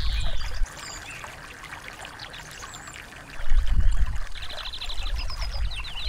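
Small songbirds chirping, with a rapid trill past the middle and a run of falling notes near the end, over trickling, pouring stream water. A deep low rumble under the water cuts out just under a second in and returns about three seconds later.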